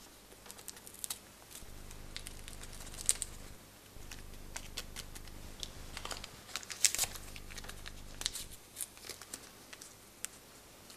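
Faint crinkling and small irregular clicks of fingers handling a small packet of saffron and crumbling it over a mixing bowl. A low steady hum comes and goes underneath.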